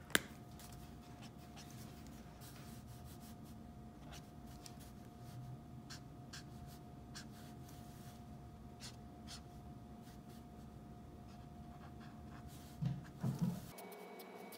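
Alcohol marker and hands working faintly on sketchbook paper, with scattered small clicks. A sharp click comes right at the start, and a couple of dull knocks come near the end.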